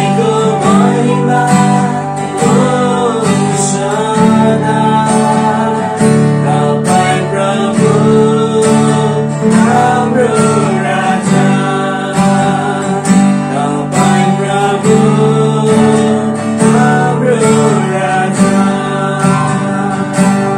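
A man and a woman singing a Nepali Christian worship song to a strummed acoustic guitar.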